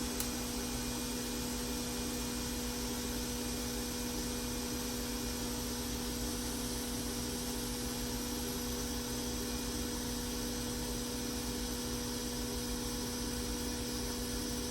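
Steady electrical hum with an even hiss from a running bench device.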